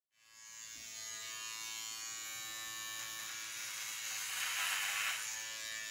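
Small handheld electric hair trimmer running with a steady buzz. About four seconds in it turns louder and rasping for about a second as the blade cuts through hair at the hairline.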